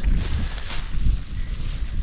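Wind buffeting the microphone in a low, steady rumble, with faint rustling as puha (sow thistle) stems are cut with a knife over a fabric bag.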